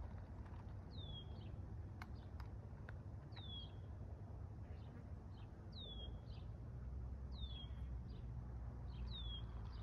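A songbird calling over and over: a short, falling whistled note repeated about every two seconds. A steady low rumble lies underneath.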